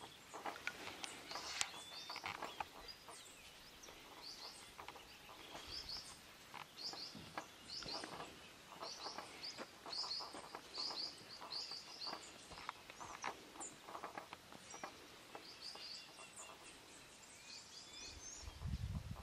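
Birds chirping in the background: many short high chirps repeated every second or so, with scattered sharp clicks. A low rumble comes in near the end.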